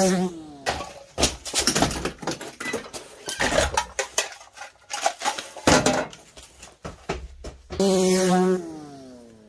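A dirt bike engine passes close by, its pitch dropping as it goes. Then comes a run of sharp metallic clanks and clicks from metal parts of a vending machine being handled. About 8 s in, a dirt bike engine runs past again and its note falls and fades away.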